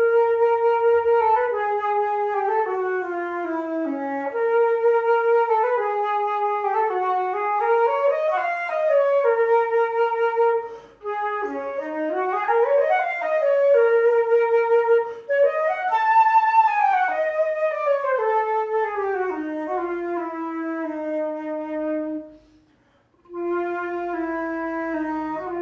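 A solo melody played one note at a time on a Yamaha instrument under repair, with a reedy wind-like tone and smooth slides up and down between held notes. It stops briefly twice and pauses for about a second near the end before going on.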